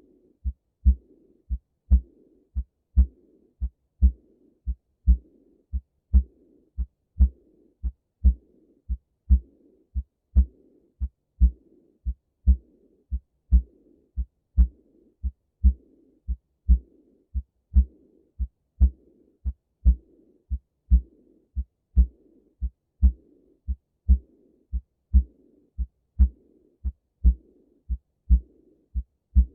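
Recorded heart sounds with a murmur: a regular lub-dub about once a second, with a soft rushing murmur filling the gap between the beats.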